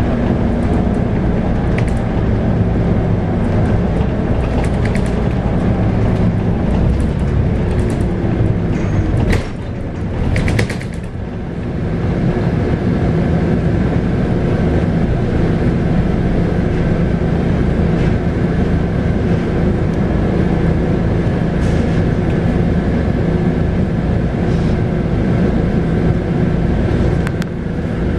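Scania K280UB bus's 9.3-litre five-cylinder diesel running under way, heard from inside the cabin, with light rattles and clicks over a steady engine drone. The engine note drops off briefly about ten seconds in, then picks back up and holds steady.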